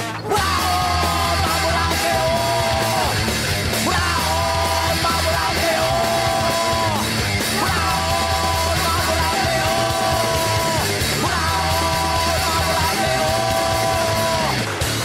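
Loud heavy rock music in a punk or metal style, with shouted vocals over distorted guitar, moving in repeating phrases of about two to three seconds.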